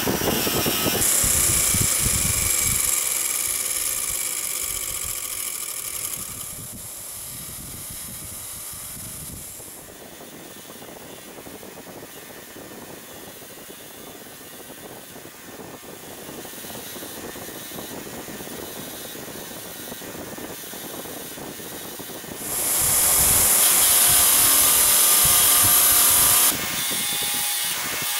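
Delta bench grinder's wire wheel spinning as old steel jack parts are pressed against it to clean off rust: a steady motor whir with the bristles scrubbing the metal. The sound jumps in level several times and is loudest and brightest for about four seconds near the end.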